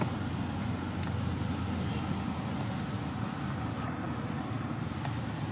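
Steady low outdoor background rumble with a few faint ticks.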